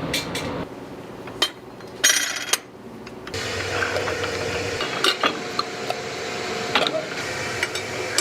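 Metal clinks and taps of tools handling the gold, with a short hiss about two seconds in. A steady machine hum starts about three seconds in, with a few more clinks over it.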